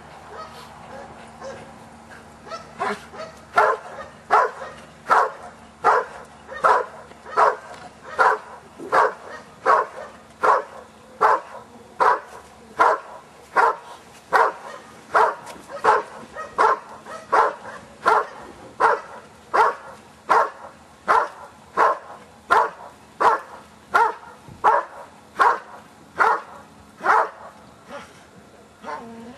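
Belgian Malinois barking steadily at the helper in the blind, the hold-and-bark (guarding bark) of Schutzhund protection work. The barks start about three seconds in and come at an even rhythm of about three barks every two seconds.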